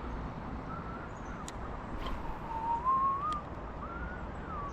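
Faint whistling in a few slow notes that glide up and down in pitch, the longest rising for about a second, over a steady background hiss, with two light clicks.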